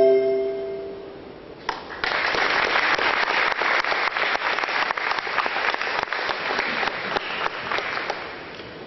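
The last chord of marimbas and other mallet percussion rings and dies away. After a single sharp knock, audience applause starts about two seconds in and tapers off near the end.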